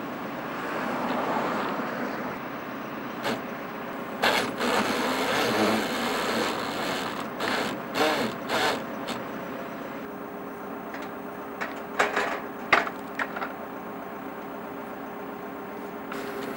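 Huddig backhoe loader working a vibratory cable plow: a steady machine running, with irregular sharp metallic clanks and rattles in two clusters, a few seconds in and again past the middle.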